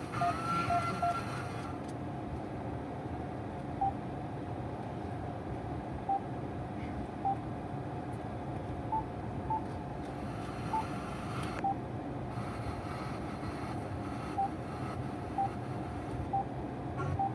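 Short electronic beeps from a car's touch-screen head unit as its buttons are pressed, about a dozen at irregular intervals, over a steady low cabin hum.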